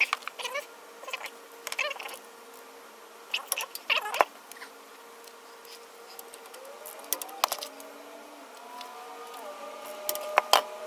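Wrench clicking on the bolts of a rear differential cover as they are tightened in turn: scattered sharp metallic clicks, some in quick pairs, with a faint steady hum underneath that rises in pitch about two-thirds of the way through.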